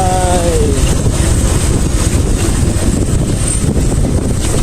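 Heavy wind buffeting on the microphone of a moving motorcycle, with the motorcycle running underneath.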